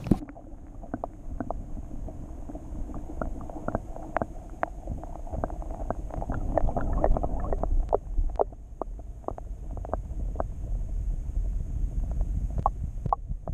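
Muffled sound of moving water heard by a submerged microphone as a largemouth bass is released by hand: a low, churning rumble with many small clicks and pops scattered throughout.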